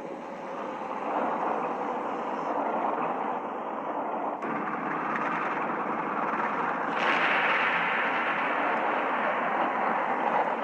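Steady rumbling noise of large heavy balls rolling over a hard floor. It grows louder and brighter about seven seconds in.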